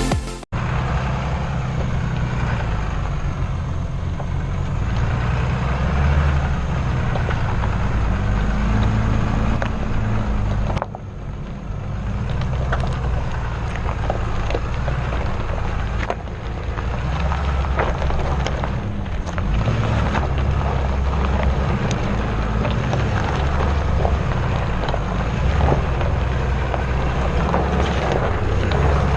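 Off-road vehicle driving up a rough dirt trail: the engine running under load with its pitch shifting up and down, along with wind noise on the microphone and scattered knocks and rattles. The sound drops out briefly about 11 seconds in.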